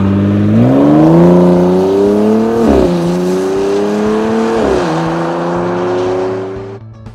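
Bentley Bentayga Speed's twin-turbo W12 running through an Akrapovič sports exhaust, accelerating hard through the gears. The pitch climbs, drops sharply at an upshift a little under three seconds in and again near five seconds, then climbs once more and fades as the car pulls away.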